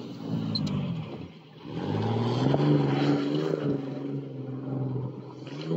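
Chevrolet Blazer SUV engine revving hard as it slides around a dirt rallycross course. The revs drop away about a second in, then climb again and hold before easing off near the end.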